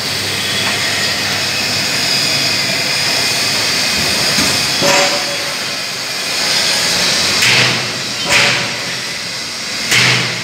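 MAB 485 magnetic drilling machine's electric motor running steadily with a hissing whine, with a few sharp metallic knocks in the second half.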